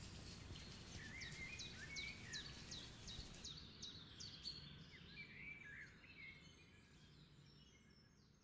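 Birds singing: quick high chirps that drop in pitch, about three a second, mixed with warbling notes, over a faint low steady rumble. The sound fades out gradually over the last few seconds.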